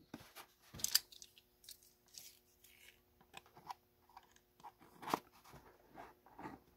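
Snap-off utility knife blade slitting packing tape on a small cardboard box, with quiet scratching and rustling of the cardboard as it is handled and a couple of sharper clicks.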